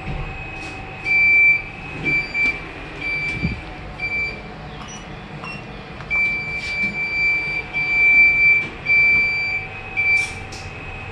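Lift car button panel beeping as buttons are pressed: a run of short high beeps of uneven length, about one a second, with a pause of about two seconds midway. A steady faint whine runs underneath.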